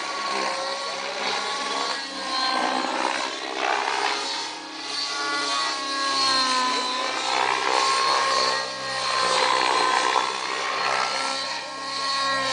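Rave 90 radio-controlled helicopter flying overhead: its glow-fuel engine and rotor run with a pitch that wavers up and down, and the sound swells and fades as it manoeuvres.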